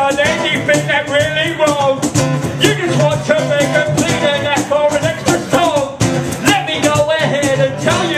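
Live acoustic band music: a voice singing a wavering melodic line over a strummed electro-acoustic guitar, with quick, evenly spaced percussive ticks running underneath.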